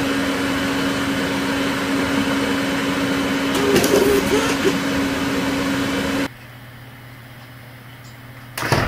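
Steady machine-like hum: a constant low tone over an even hiss, with a short wavering tone about four seconds in. About six seconds in it drops to a much quieter hum with a lower tone.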